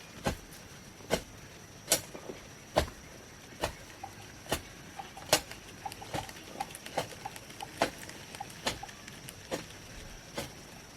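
A hoe striking into soil in a steady rhythm, about one blow a second, each blow a sharp thud. A faint steady high tone runs underneath.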